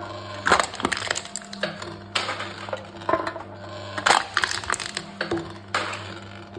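Aluminium cans being crushed one after another in a can-crushing machine: a crunch of crumpling metal about every two seconds, four times, over a steady low hum.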